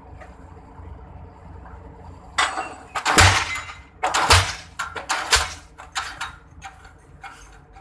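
Diesel pile-driving hammer striking three times, about a second apart; each blow is a low thud with a sharp metallic clatter, followed by fading clinks. A low steady hum underlies the start.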